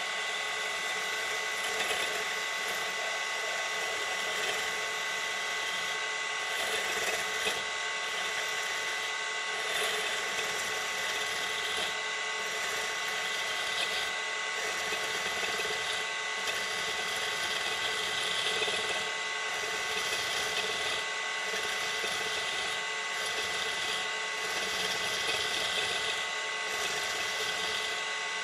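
Woodturning tool scraping a spinning brass shaft on a lathe, cutting away its threads: continuous metal-on-metal scraping with a steady high ringing tone.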